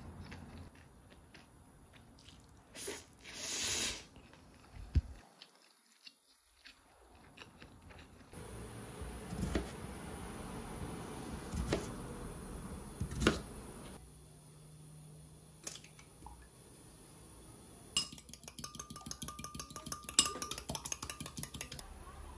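Quiet chewing and eating noises, then a kitchen knife cutting peeled potatoes on a cutting board: the blade knocks the board every couple of seconds, and near the end comes a quick run of close knocks.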